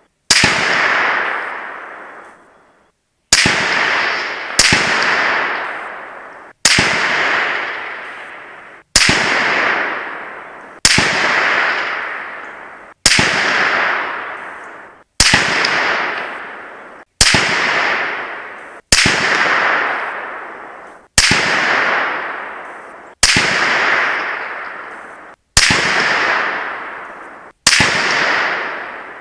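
A string of 6.5 Grendel rifle shots spliced back to back, about fourteen of them at roughly two-second spacing. Each is a sharp crack with a long echoing tail that dies away.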